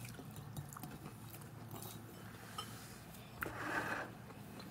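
Faint chewing and mouth sounds while eating a poke bowl, with scattered light clicks of a plastic fork against the food and bowl. A short soft hiss comes a little past three seconds in.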